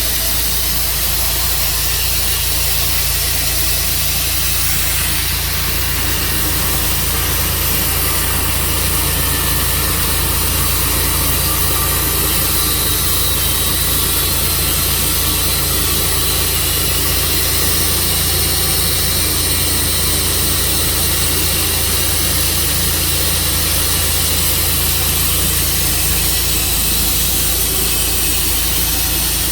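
Tru Cut sawmill running steadily, its engine humming under a constant hiss of the saw cutting through a black walnut log.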